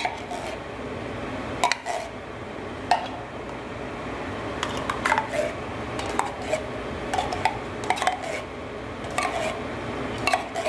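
Metal spoon stirring a thick, wet bread-crumb dressing in a disposable aluminium foil pan: irregular clicks and scrapes as the spoon knocks against the foil, over steady background noise.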